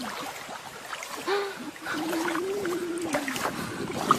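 A dog's voice: a short whine, then a longer, slightly wavering drawn-out whine about two seconds in.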